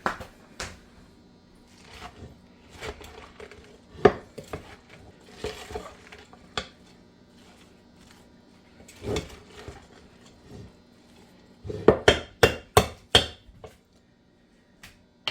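Dishes and utensils clattering: scattered knocks and clinks, with a quick run of about six sharp knocks near the end.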